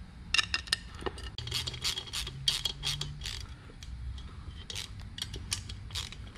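Hand ratchet clicking in quick irregular runs as it turns the rocker box cover bolts on a Harley Twin Cam engine, with a pause in the middle.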